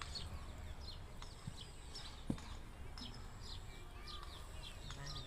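Birds chirping: a steady stream of short, high, downward-sliding calls, with a couple of single soft knocks in between.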